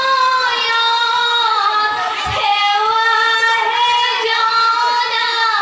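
A group of girls singing an Assamese biya naam (traditional wedding song) together, without instruments, in long drawn-out, gliding phrases.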